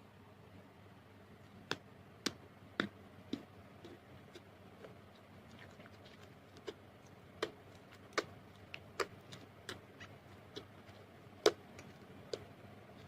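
Slime being played with, giving about a dozen sharp pops and clicks at irregular intervals, the loudest near the end.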